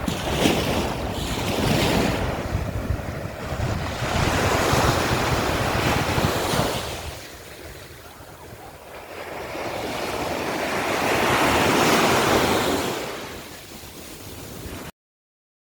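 Sea surf: waves breaking and washing in, swelling and ebbing in long surges, with wind buffeting the microphone. The sound cuts off suddenly near the end.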